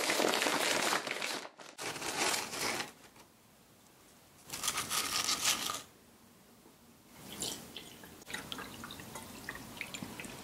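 A plastic biscuit bag crinkling in three short bursts. Then coffee is poured from a glass carafe into a ceramic mug, trickling and dripping over the last few seconds.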